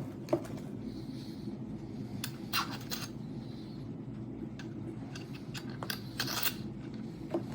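Objects being handled close by: a few sharp clicks and short scratchy rustles over a steady low hum.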